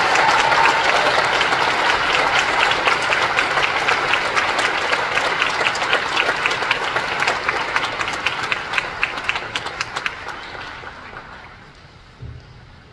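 An audience applauding. The clapping thins to a few scattered claps and dies away about eleven seconds in, followed by a soft low thump near the end.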